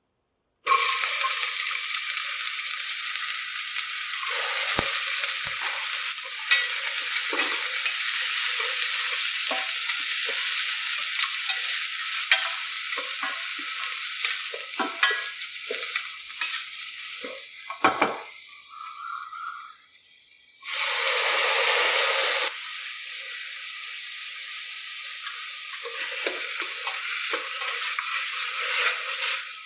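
Food frying in hot oil in a pan, sizzling steadily while being stirred, with many short clicks and scrapes of the spoon against the pan. Past the middle the sizzle dips, then surges louder for about two seconds.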